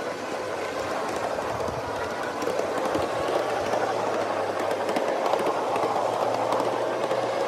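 Ride-on miniature train rolling along its track: a steady rattle of wheels on rail with many small clicks. A low steady hum joins about three seconds in.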